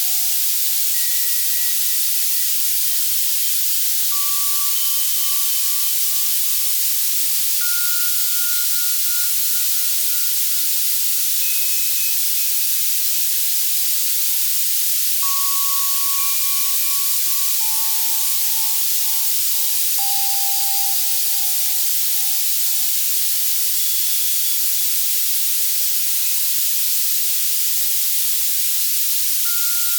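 Synthesized white noise from an Access Virus C synthesizer, a steady hiss strongest in the highs, made as a tinnitus masker. Soft bell tones sound one at a time every few seconds at changing pitches, some low and some high, each ringing on and fading over a few seconds.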